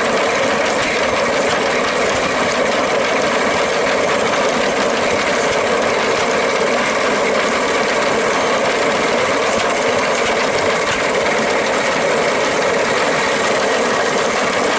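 Antique wooden threshing machine running steadily while threshing sheaves of grain, a continuous mechanical rattle of its moving parts.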